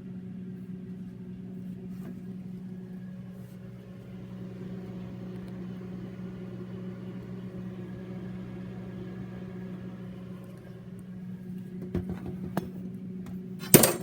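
Microwave oven running with a steady hum while heating hard candies. A few sharp clicks come near the end, then one loud click.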